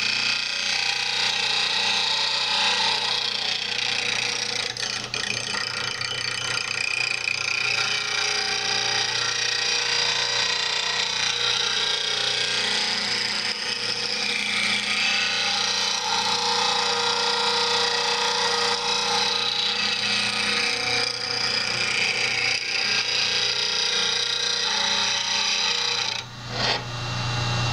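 Rikon 8-inch bench grinder running, its wheel grinding the tip of a steel spindle gouge that is being rolled across it in a Varigrind jig: a steady hiss of grinding over the motor's hum. The sound drops away briefly near the end, then resumes.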